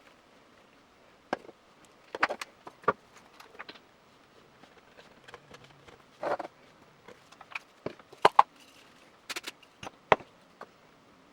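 Irregular sharp clicks and knocks of tools and hard plastic parts being handled at a workbench, with a brief rustle about six seconds in.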